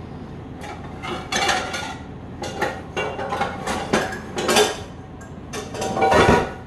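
Dishes and metal cutlery clinking and clattering as they are handled, in a string of separate knocks with a louder clatter near the end.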